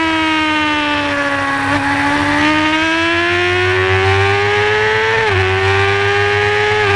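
Honda supersport race bike's engine screaming at high revs under full throttle, heard onboard. The pitch sags over the first couple of seconds, then climbs steadily, dropping sharply at a quick upshift about five seconds in and again at another shift near the end.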